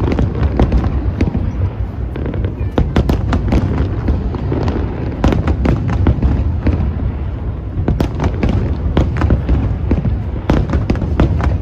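Aerial fireworks display going off in rapid succession: many sharp cracks and bangs over a continuous low rumble.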